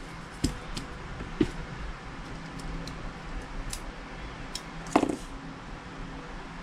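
Scattered light clicks and taps of small parts and tools as a plastic airsoft pistol frame's lockwork is taken apart and refitted, with one louder, brief knock about five seconds in.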